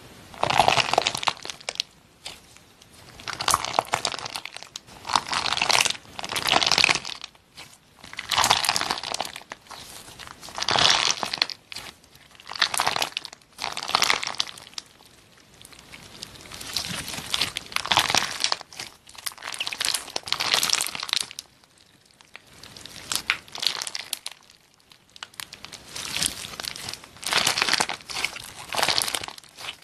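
Hands squeezing and kneading a clear squishy stress ball packed with bumpy rainbow beads. Each squeeze makes a short burst of noise, repeating roughly every one to two seconds, with a couple of quieter stretches.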